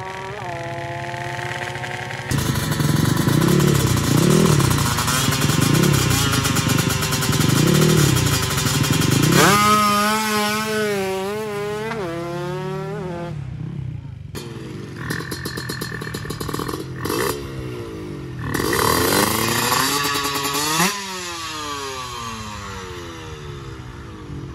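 Drag-race motorcycle engine at full throttle down a straight, its pitch wavering up and down, climbing sharply about ten seconds in and then falling away. After a cut, a stationary drag bike's engine is blipped a few times, revved up high and let fall back to idle near the end.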